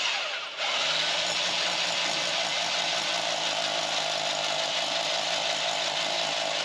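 Power drill boring a hole, running steadily after a sudden start, with a brief dip about half a second in.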